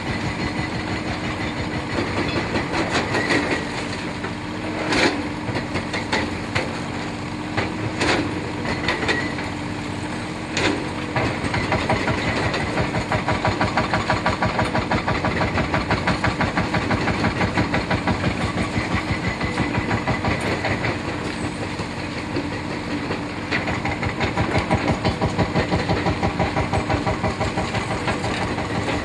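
Heavy excavator running, its demolition jaw crunching into a concrete bridge pier, with a few sharp cracks of breaking concrete in the first half. From about twelve seconds in, a fast, regular pulsing runs under the steady machine noise.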